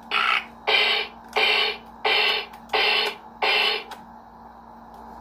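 Bop It Extreme electronic toy playing a run of six short, harsh electronic sounds, evenly spaced about a second and a half apart, that stop about four seconds in.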